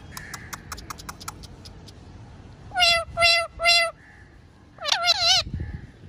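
Pet ringneck parrot calling: three short, even, loud squawks about three seconds in, then a quavering, warbling call a second later. A quick run of faint clicks fills the first second and a half.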